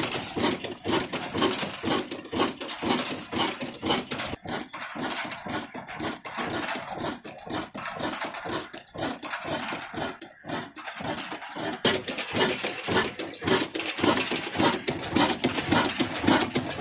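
22 HP stationary diesel engine running steadily under load driving a wheat grinding mill, with a fast, even, pulsing beat.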